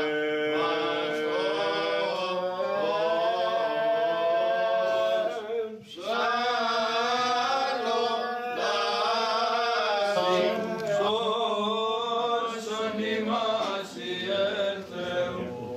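Greek Orthodox Byzantine chant: men's voices singing a liturgical hymn in long, drawn-out phrases, with a short break about six seconds in.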